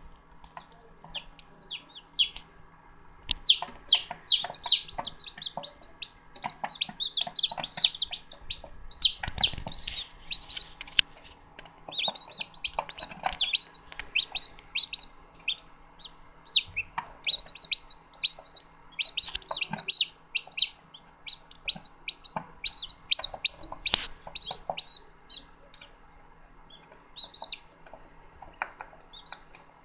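Newly hatched blue-egg chicken (cheonggye) chicks peeping: rapid runs of short, high, downward-sliding peeps, with a couple of brief lulls.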